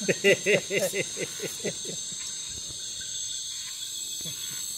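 A steady, high-pitched insect chorus buzzing at dusk by a forest creek. Over it, a person's voice runs through a quick string of short repeated syllables that dies away about two seconds in.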